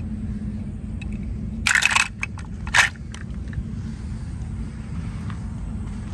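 Crackling handling noise: a short rustling crackle about two seconds in, then a few small clicks and one sharp crack, over a steady low rumble of background noise.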